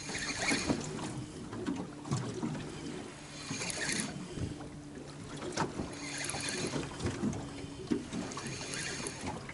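Choppy waves slapping and splashing against the side of a small metal boat hull, a splash roughly every two and a half seconds, with a low steady hum underneath.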